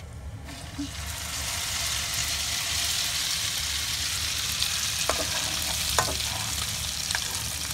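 Tuna and egg omelette mixture frying in hot oil in a pan: a sizzle that starts about half a second in and builds, with a few sharp clicks of a utensil against the pan in the second half.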